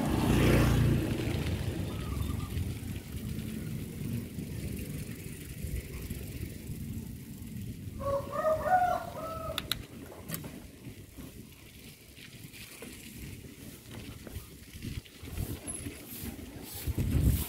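A motor scooter passes close by, its engine loudest in the first second. About eight seconds in, a rooster crows once, over a steady low rumble.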